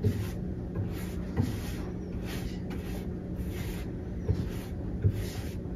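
Paintbrush stroking back and forth over a wooden cabinet face frame: a soft, scratchy swish about twice a second, with a few light knocks against the cabinet, over a steady low hum.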